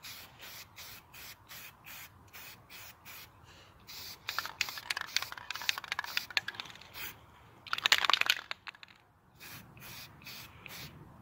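Aerosol spray can of primer hissing in quick short bursts, about three a second, then in longer, louder sprays through the middle, the loudest a burst of about a second, and short bursts again near the end.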